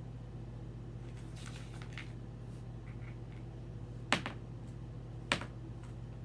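Faint rustling of small objects being handled, then two sharp clicks about a second apart, over a steady low hum.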